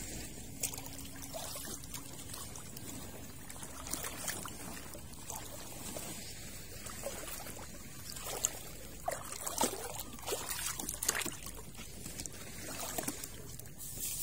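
Water trickling and pouring, with many small splashes and clicks that grow busier and louder in the second half.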